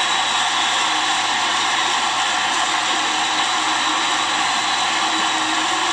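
Large ballpark crowd cheering steadily, a continuous wash of noise with no breaks.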